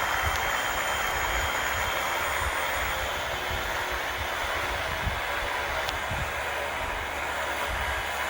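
Small 12 V electric motor driving a dual axial-flux permanent-magnet generator, running at a steady speed with an even whirring hum.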